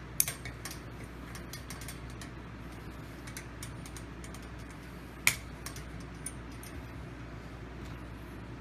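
Scattered light clicks and rattles of artificial palm tree parts being handled during assembly, with two sharper clicks, one just after the start and one about five seconds in.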